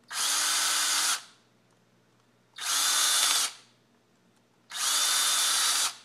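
Cordless drill driving Phillips screws back into the plastic cap of an extension-pole tip connector: three short runs of the motor, each about a second long, with pauses between.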